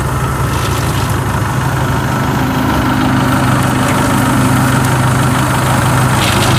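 Kubota DC-105X combine harvester's diesel engine running steadily, a low even hum that grows slightly louder in the second half.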